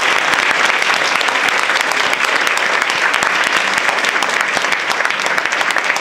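Audience applauding steadily at the end of a talk: a dense, even clatter of many hands clapping.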